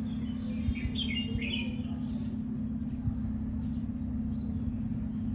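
Small birds chirping, a quick cluster of high twittering calls about a second in and a fainter one near the end, over a steady low hum.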